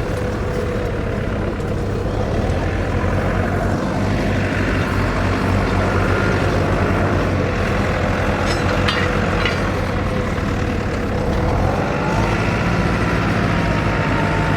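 An engine running steadily with a low hum and a held whine that rises in pitch about twelve seconds in, with a few short clicks near the middle.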